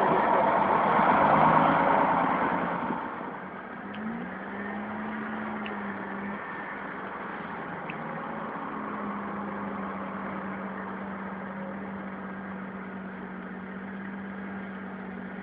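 Renault Master van's engine idling steadily as a low, even hum. A louder rush of noise in the first three seconds dies away before it.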